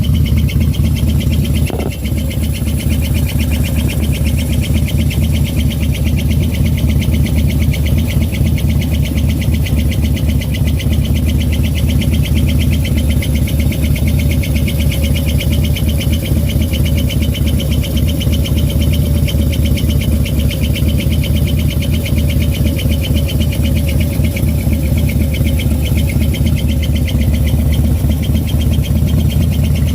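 Harley-Davidson Twin Cam 96 V-twin of a 2009 Fat Bob idling steadily, with a fast, even ticking over the engine's running. Its plunging, squishing noise from near the cams is the sign of a defective hydraulic lifter.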